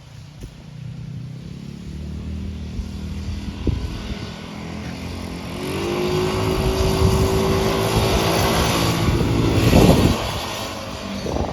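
A Chinese quad's GY6 single-cylinder four-stroke scooter engine running as the quad is driven. It revs up about halfway through and holds a steady higher pitch, and is loudest near the end.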